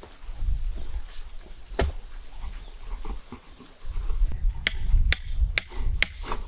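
Sharp knocks: a single one, then a quick run of about five, roughly two a second.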